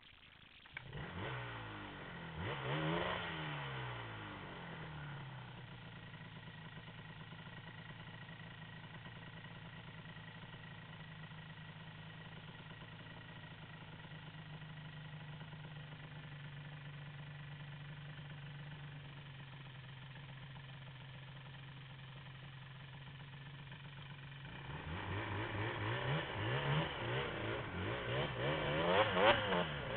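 Yamaha Banshee ATV's two-stroke twin engine revved up and down several times, then idling steadily for about twenty seconds, then revved hard again and again near the end.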